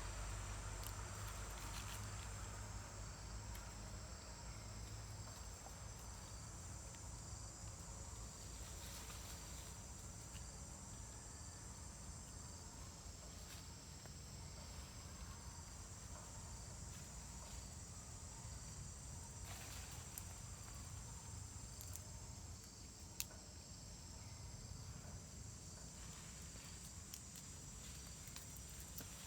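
Steady high-pitched insect chorus, crickets or similar, with a low rumble underneath and a few faint clicks, one sharper about two-thirds of the way in.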